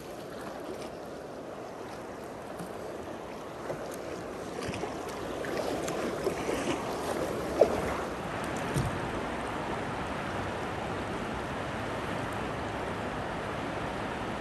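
Shallow river rapids rushing steadily, with a few kayak paddle splashes and knocks in the first half and one sharper knock about seven and a half seconds in.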